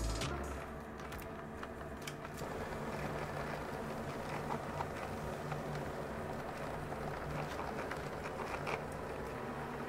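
Quiet room tone: a faint steady low hum with a few soft ticks.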